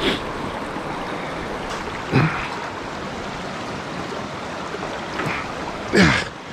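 Rushing creek water running steadily, a strong current flowing fast. A few brief louder sounds break in about two seconds in and again near the end, the last one the loudest.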